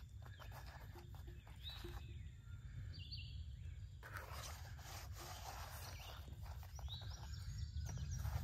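Quiet outdoor ambience: a steady low rumble with a few short bird chirps, and faint rustling as hands press biscuit dough into flour on a dry bag, busier in the second half.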